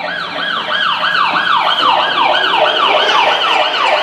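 Siren sound effect: a fast, loud yelping wail that rises quickly and falls back about three to four times a second. It starts abruptly and keeps a steady rhythm.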